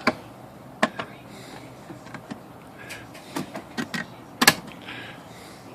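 A few separate sharp clicks and knocks of metal parts on a Royal Safari manual typewriter being handled as its lid is bent and fitted. The loudest knock comes about four and a half seconds in.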